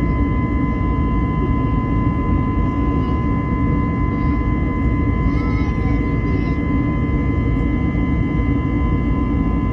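Airbus A321neo's CFM LEAP-1A turbofan engines running steadily in flight, heard inside the cabin as a deep, even roar with a few steady whining tones above it.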